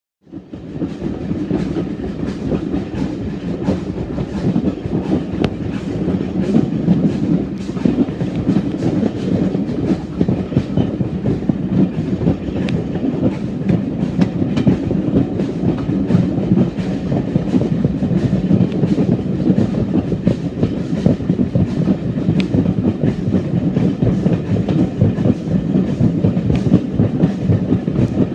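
Carriage of a steam-hauled heritage train running along the line, heard from an open carriage window: a steady rumble with wheels clicking over the rail joints.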